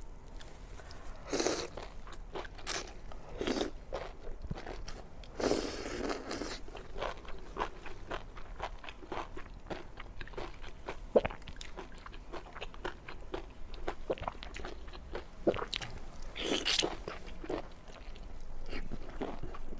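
A person eating close to the microphone: crunchy bites and chewing, a dense run of small crisp clicks broken by a few longer, louder bites.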